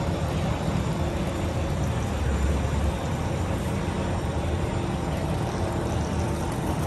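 City street ambience: a steady low rumble of traffic, swelling briefly about two to three seconds in.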